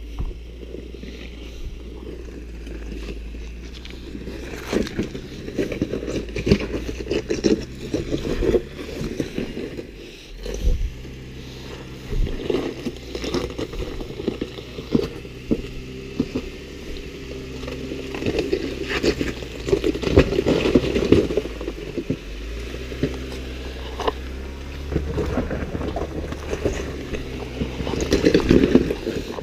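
Jeep Wrangler engine running at low crawling revs, a steady low hum, while its big off-road tires grind, crunch and scrape over loose rock and stone ledges in irregular bursts, busiest around the middle and near the end.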